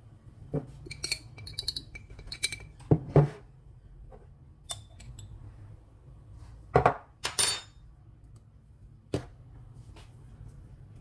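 Metal teaspoons clinking and tapping against a ceramic bowl as spice powders are spooned in. It is a scattered series of sharp clinks, some with a short ringing tone, loudest about three seconds in and again about seven seconds in.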